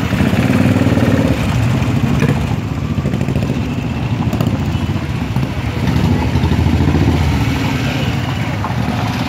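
Several motorcycle engines running at close range, swelling now and then as riders pull away one after another.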